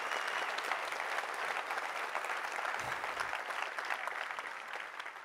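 Audience applauding, a dense spread of many hands clapping that fades away near the end.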